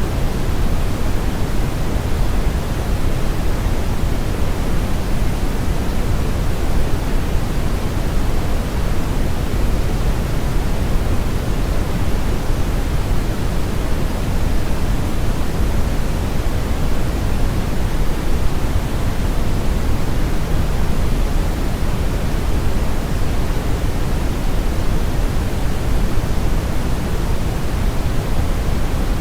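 Synthetic brown noise blended with white noise: a steady, unchanging hiss, heaviest in the low end.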